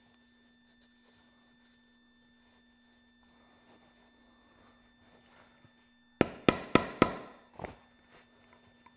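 Hammer blows on a metal hole punch driving through boat-top canvas onto a wooden block: four quick, sharp, ringing strikes about six seconds in, then a lighter fifth. The extra blows finish cutting a snap hole that the earlier strikes had not fully cut through.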